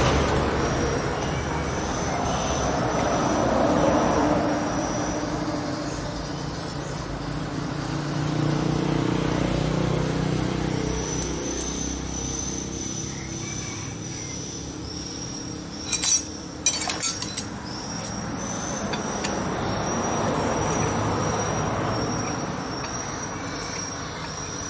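Road traffic rumbling in the background, swelling and fading as vehicles pass, with a thin high chirping tone that comes and goes. About two-thirds of the way through come a few sharp metallic clinks close together as metal engine parts are handled.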